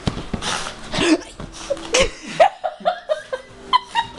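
Yorkshire terrier giving a quick string of short, high-pitched whines and yips in the second half, after a stretch of scuffling noise.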